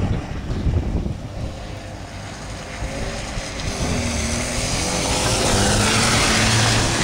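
Small hatchback's engine held at high revs while the car drifts on snow, the note rising as it closes in and passes, growing louder toward the end.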